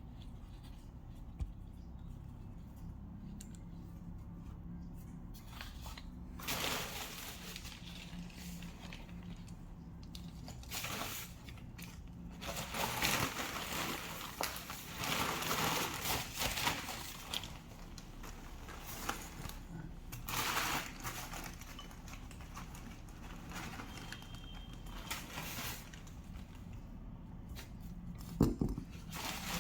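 Intermittent rustling and crinkling in several bursts of a second to a few seconds, over a low steady hum.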